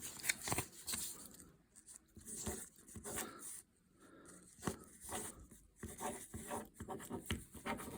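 Small pen from a Victorinox Companion pocket knife scratching faintly on paper as it is tried out, in short irregular strokes with small handling clicks.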